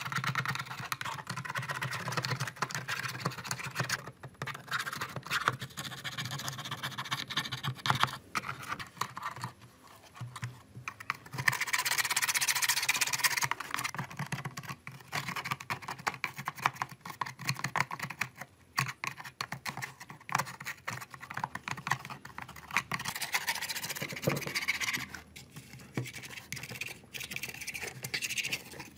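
A thin metal pick scraping and picking caked dried mud off a plastic desk telephone: a dense run of small scratches and ticks, with a louder stretch of continuous scraping a little before the middle.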